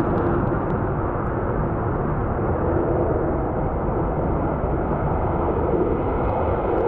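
F-22 Raptor's twin turbofan engines at takeoff power as the jet rolls down the runway: a steady, loud jet roar.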